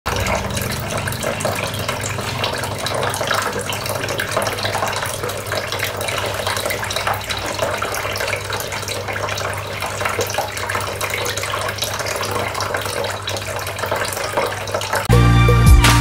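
Water from a tabletop waterfall fountain trickling and splashing steadily from several small pipe spouts down its tiers into a pebble-lined basin, over a low steady hum. About a second before the end, loud music with a beat cuts in.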